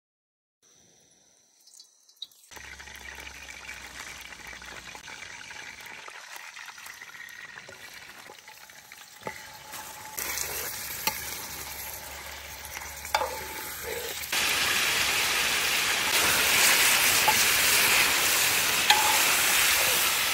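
Chicken karahi frying and sizzling in hot oil, with a few sharp clinks of a utensil stirring in the pan. The sizzle grows louder in steps, about ten seconds in and again near fourteen seconds.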